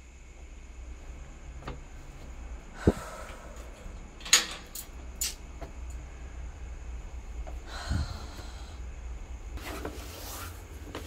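Close handling noises by a wooden door and shoe rack: a single thump about three seconds in, a few sharp clicks a second or so later, then two brief bursts of rustling shuffle.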